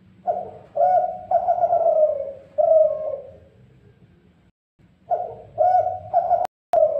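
Spotted dove (dekuku) cooing: two phrases of repeated, slightly falling coos, the first just after the start and the second about five seconds in, with the sound cutting out in short gaps near the end.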